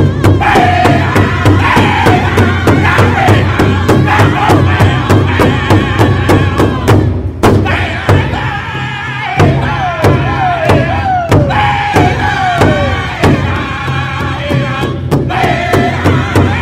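Pow wow drum song: a big drum struck in a steady, fast beat while a group of singers chants high phrases that slide downward in pitch.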